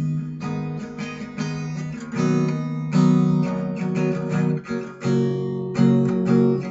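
Acoustic guitar strumming chords in a steady rhythm, without singing.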